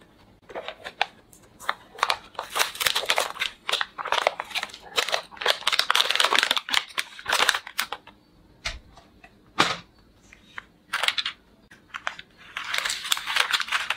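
Clear plastic packaging crinkling in irregular bursts as it is handled and pulled off a toy revolver, with a single short knock about two-thirds of the way in.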